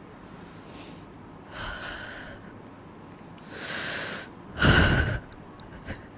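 A man breathing heavily and unevenly: four deep breaths that grow louder, the last a sharp, forceful exhale about three-quarters of the way through. He is working himself up into distress before an emotional acting scene.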